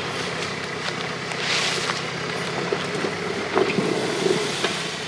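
Engine of a modified off-road 4x4 running steadily under load as it crawls through a steep dirt gully, its tyres scrabbling on loose soil, with a short burst of hiss about one and a half seconds in and a few sharp knocks later on.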